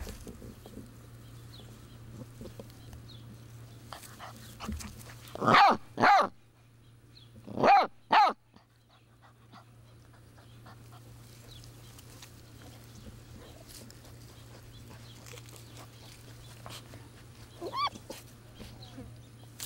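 Basset hound puppies yipping: two pairs of short, high yips about five to eight seconds in, and one fainter yip near the end.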